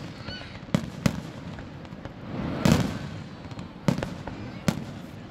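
Aerial fireworks shells bursting in the sky: five sharp bangs at irregular intervals, the loudest about two and a half seconds in.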